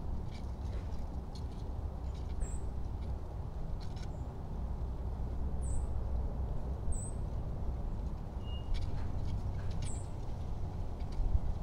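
Outdoor background of a steady low rumble, with a small bird's short high chirps four times, spread out, and a few faint clicks.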